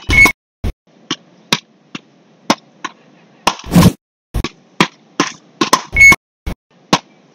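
Beach paddle ball rally: the ball is struck back and forth between hard paddles in a quick series of sharp cracks. A short high beep sounds twice, once near the start and once about six seconds in.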